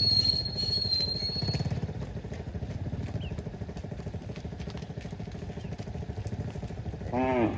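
A small engine runs steadily with a low rumble, and a thin high whine lasts through the first second or two. About seven seconds in, a cow gives a short, loud moo.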